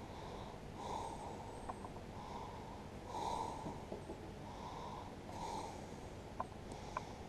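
A person breathing quietly close to the microphone: slow breaths every second or two, with a few faint clicks in between.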